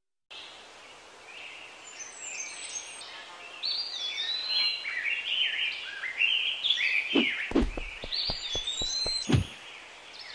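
Birds chirping and warbling over a faint steady hiss: repeated short calls and whistles that glide up and down. Near the end comes a run of short soft thumps.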